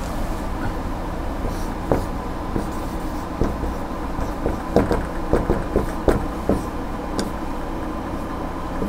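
Marker pen writing on a whiteboard: a string of short strokes and taps as letters are drawn, over a steady low hum in the room.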